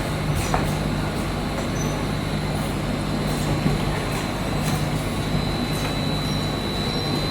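Automatic bottle filling and capping line running: a steady machine hum with a thin, constant high whine and faint light ticks.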